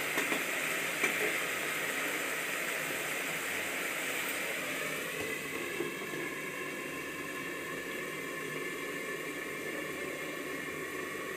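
Tomato masala simmering under a steel lid in a kadhai on a gas stove: a steady bubbling sizzle, with faint steady tones joining about halfway through.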